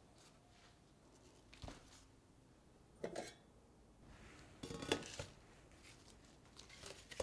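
Plant pots being handled and set down on a table, among them light galvanized metal pots: a few soft knocks and clinks, one about a second and a half in, one around three seconds, a short cluster near five seconds and one more at the end.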